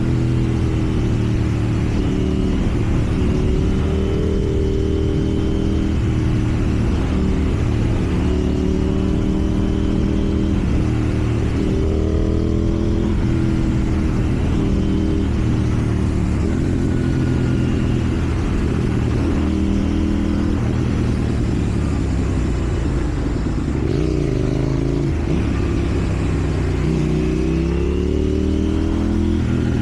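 KTM 790 Duke parallel-twin engine through an aftermarket slip-on exhaust, ridden in traffic: the engine note rises and falls over and over as the throttle is opened and closed through the gears.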